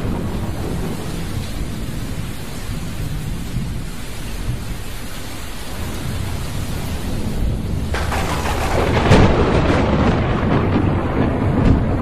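Thunderstorm: steady rain under low rumbling thunder, then a sharp thunderclap breaks in about eight seconds in and rolls on, with another crack near the end.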